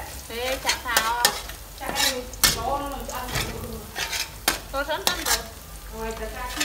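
A metal spatula scraping and stirring around a stainless steel wok in quick strokes, several a second, some with a short metallic squeal. Under it, minced garlic sizzles in hot oil.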